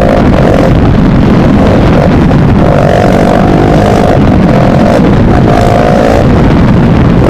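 Motorcycle with an open exhaust running under way. Its engine note holds steady for a second or so at a time, with breaks between.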